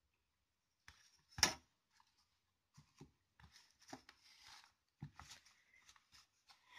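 Faint handling sounds of satin ribbon spools and a metal ruler being moved about on a tabletop: one sharp knock about a second and a half in, then soft scattered rustles and light taps.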